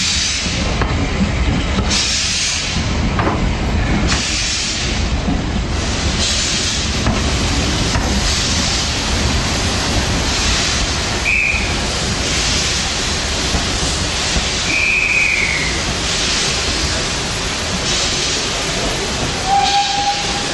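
Southern Railway U class 2-6-0 steam locomotive pulling away with its train: regular hissing exhaust beats about every two seconds over the low rumble of the coaches rolling on the rails. A brief steady tone sounds just before the end.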